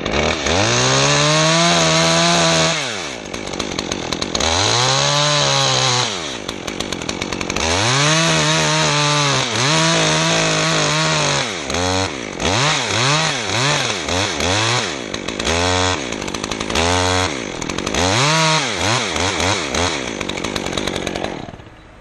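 Stihl chainsaw revved up to full throttle and let back down, over and over. It runs in a few long high-revving bursts, then a string of short, quick throttle blips near the end.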